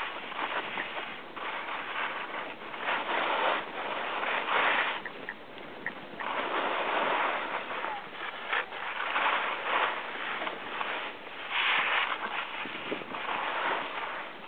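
Skis hissing and scraping over packed snow, the sound swelling and easing with each turn.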